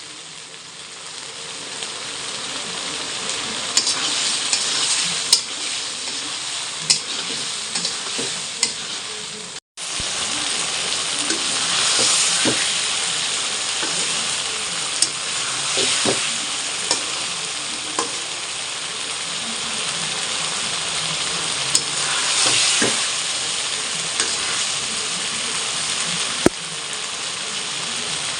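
Food sizzling as it fries in a pan, stirred with a spatula that scrapes and taps against the pan now and then. The sound cuts out briefly about ten seconds in.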